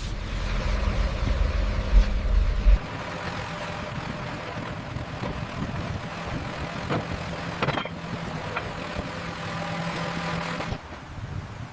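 An engine running, with a heavy low rumble for the first few seconds that cuts off suddenly, then a steady hum with a few clicks, dropping away shortly before the end.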